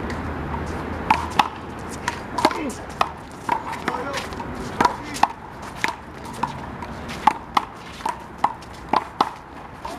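A big blue rubber handball being slapped by hand and smacking off the wall and court during a one-wall doubles handball rally. It is an irregular string of sharp smacks, roughly one to three a second.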